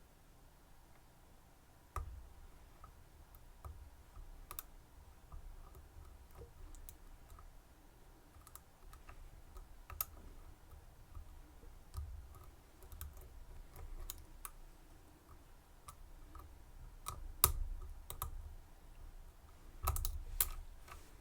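Lock picking in an EVVA EPS slider-type lock cylinder: pick and tension tool making small, irregular clicks and taps with soft handling thumps. The sharpest click comes about 17 seconds in, and a quick cluster of clicks follows near the end.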